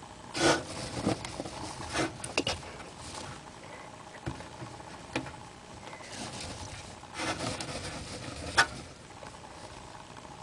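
Dry hay and wood-shaving bedding rustling and scratching in short, irregular bursts as a hamster forages through it.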